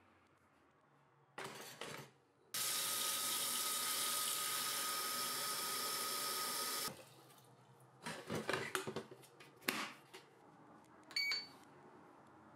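A tap runs water into an electric kettle for about four seconds and then stops abruptly. Clatter and knocks follow as the kettle is handled, then a short ringing click near the end.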